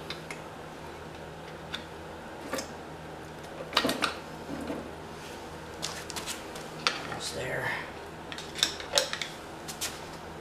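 A screwdriver clinking and scraping against the metal case of a lawn mower transaxle as the split housing is pried apart, with scattered metal clicks and knocks, the loudest about four seconds in.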